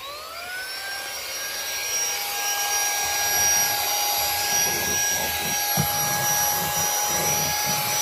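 Handheld cordless car vacuum (a 2-in-1 vacuum and tire inflator) spinning up with a rising whine, then running with a steady high whine and rush of suction as it cleans the car floor. A few faint knocks come near the end.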